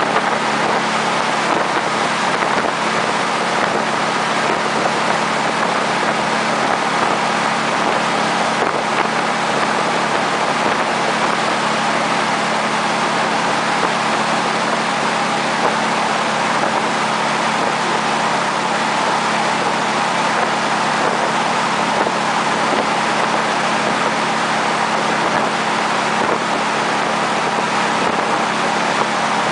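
Jet boat running steadily at speed: a constant engine and jet-drive drone under the rush of its churning wake.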